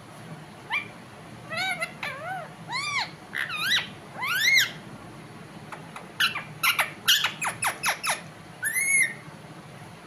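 Rose-ringed parakeet calling: a string of short arching chirps, then about six seconds in a fast run of about ten sharp downward-sweeping calls, and one more chirp near the end.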